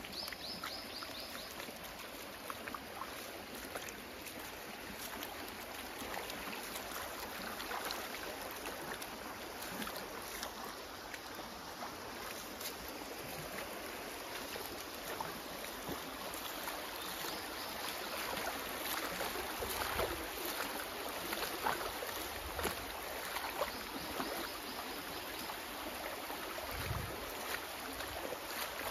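Shallow creek water running and trickling steadily over pebbles and stones.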